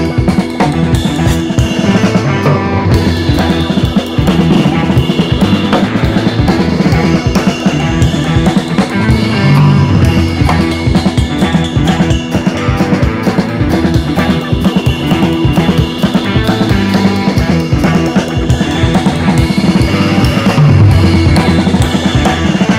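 Background music with a steady, driving drum-kit beat.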